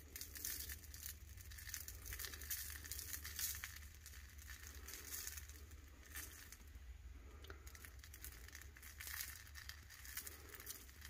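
Chunky glitter shaken from a shaker-top jar, pattering and rustling in repeated bursts onto paper and a wet epoxy-coated tumbler, over a low steady hum.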